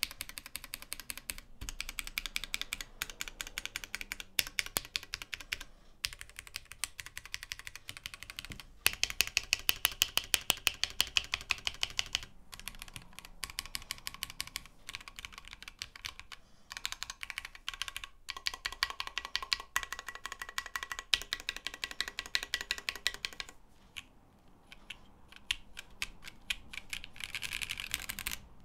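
Typing on a Tofu60 mechanical keyboard with Lavender switches, an FR4 plate and Osume Sakura keycaps: fast, continuous keystrokes, thinning out briefly about 24 seconds in.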